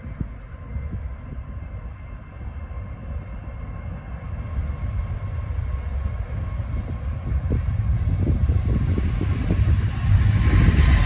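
Airbus A350's Rolls-Royce Trent XWB turbofans at takeoff thrust during the takeoff roll: a deep steady rumble with a faint steady whine, growing louder and brighter as the aircraft approaches, most sharply near the end.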